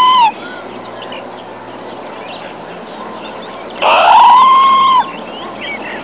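A macaw squawking: one loud, harsh, drawn-out call breaks off just after the start, and another lasting about a second comes about four seconds in. Between them is a steady hiss with faint high chirps.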